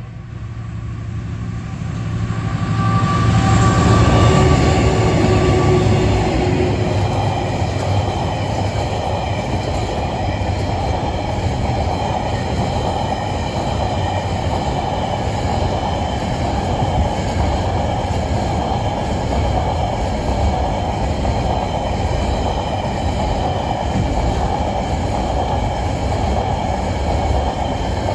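Two Tasrail TR class diesel locomotives passing close by, loudest about four seconds in, followed by a long string of container wagons rolling steadily past on the rails.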